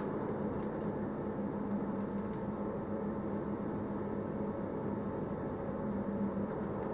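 Steady running noise of a Berner Oberland-Bahn train heard from inside the carriage: an even rumble with a steady low hum and a couple of faint ticks.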